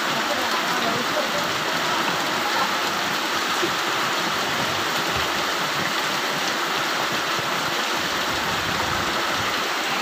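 Floodwater rushing fast down a flooded street in a steady, unbroken rush.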